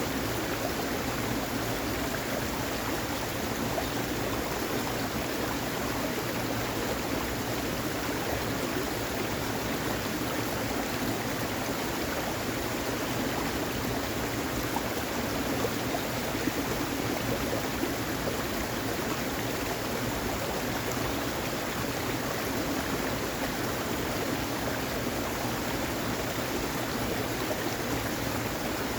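Heavy rain falling steadily: an even, unbroken hiss of water.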